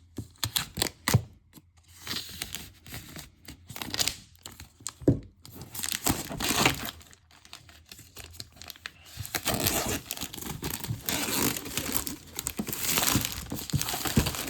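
Packaging being opened by hand: a few sharp clicks at first, then tearing and crinkling of the wrapping that becomes dense and continuous over the last several seconds.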